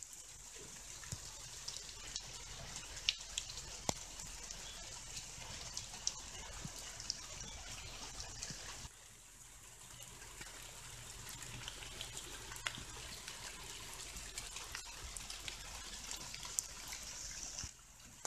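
Light rain falling on leaves and a small pond: a steady hiss scattered with sharp drips. The sound dips abruptly about nine seconds in and again near the end.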